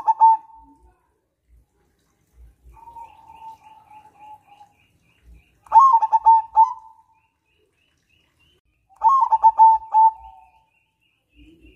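Zebra dove (perkutut) singing its cooing song in phrases of rapid staccato coos. The first phrase is at the start, the next about six seconds in and the last about nine seconds in, with a softer, smoother rolling coo between about three and five seconds.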